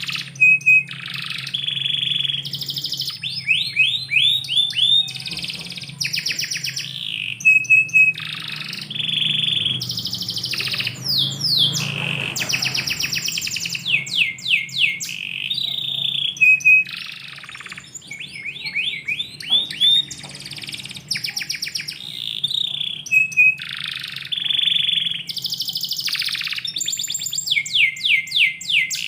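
Domestic canary singing a long, unbroken song: fast trills and rolls of rapidly repeated notes alternating with rising and falling whistled phrases, high-pitched throughout.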